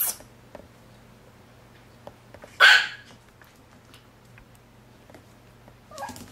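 Maltese puppy giving a single sharp bark about two and a half seconds in, with a few faint clicks around it.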